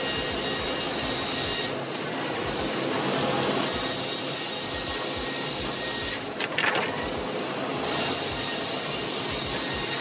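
Large circular sawmill blade cutting through a squared log, a steady mechanical din with a high whine that comes in three stretches of about two seconds each.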